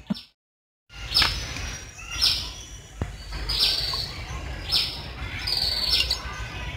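A bird calling over and over outdoors, a short high chirp that falls in pitch, about once a second, over a low steady background rumble. Just after the start the sound drops out completely for about half a second.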